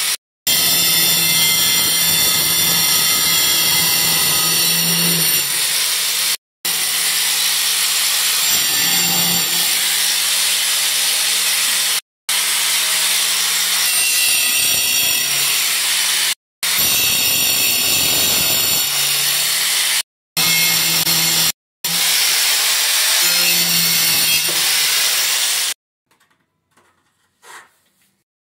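Handheld angle grinder with a cutting disc running and cutting into a ceramic tile to make a square notch: a steady grinding whine that breaks off abruptly several times and stops a few seconds before the end, leaving only faint taps.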